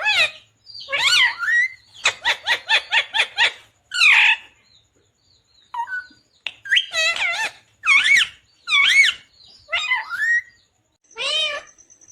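A pet ringneck parrot (rose-ringed parakeet) calling loudly in a string of sliding squawks. About two seconds in comes a quick run of short squawks, some seven a second, and the bird pauses for a couple of seconds around the middle.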